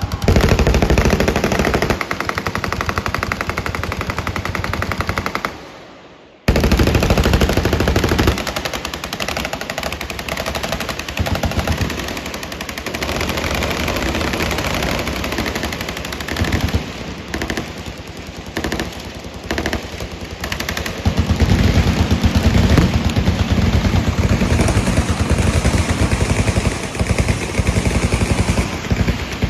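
Rapid automatic gunfire from many guns firing at once, in long overlapping strings of shots. It dies away briefly about six seconds in, then starts again at full volume.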